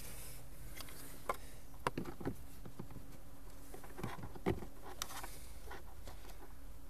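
Scattered light clicks and knocks of a plastic cover being handled and fitted into place over a car's heater blower motor housing.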